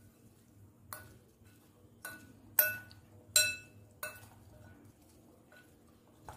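Metal spoon clinking against the sides of a glass bowl while stirring a chopped salad: a handful of sharp, ringing clinks, the two loudest near the middle, then a couple of fainter taps.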